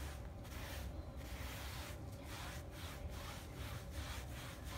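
A wet paintbrush scrubbing textured upholstery fabric in quick repeated back-and-forth strokes. A low hum runs underneath.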